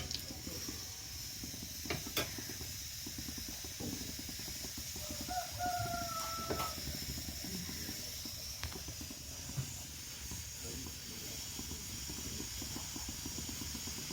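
Jimbu frying in ghee with a steady, faint sizzle as it darkens for the dal tempering. A rooster crows once about five seconds in, holding for just over a second, and a few light utensil clicks sound on the pan.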